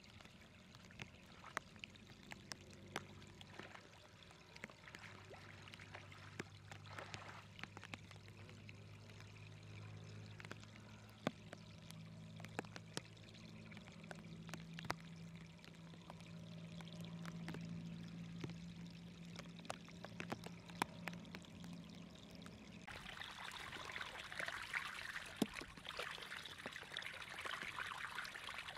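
Muddy floodwater running and splashing through a cut in an earth bank into a narrow field channel, with scattered small splashes. It becomes a louder, closer rush of pouring water about 23 seconds in.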